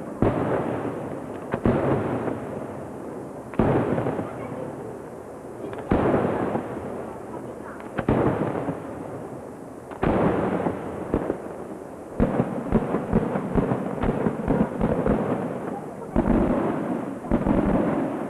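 Firework bombs going off in a series, a loud bang about every two seconds, each followed by a long rolling echo. A run of quicker cracking and popping joins in during the second half.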